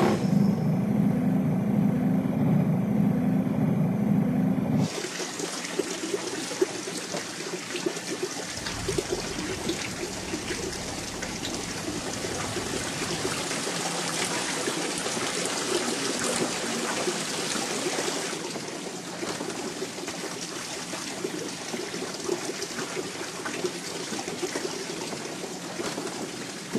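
For about the first five seconds a small boat's motor runs with a steady low drone. Then water splashes and trickles steadily, as if seafood is being handled in a crate of water.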